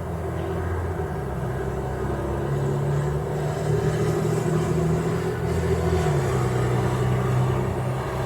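A road vehicle's engine droning steadily. Its pitch steps up a few seconds in and drops again about six seconds in.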